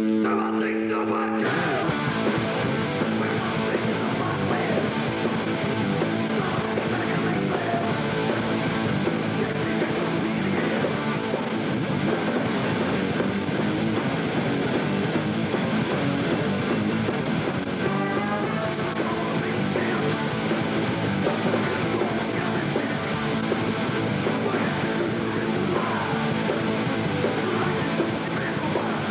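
Punk rock music with distorted electric guitar and drums playing steadily; a held guitar chord gives way to the full band about a second in.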